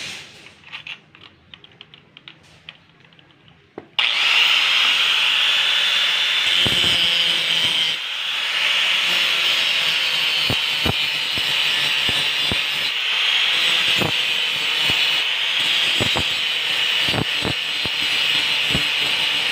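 Light clicking and handling as a disc is fitted to a handheld angle grinder. About four seconds in, the grinder switches on and runs steadily with a high whine as its disc grinds the steel blade of a machete, shaping the edge.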